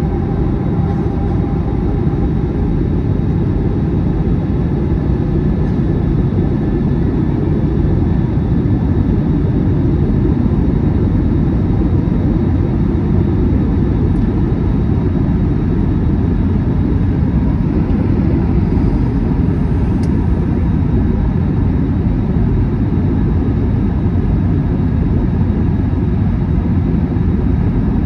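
Steady cabin noise inside an Airbus A321 during descent: a dense low rumble of the jet engines and airflow, heard from a window seat over the wing.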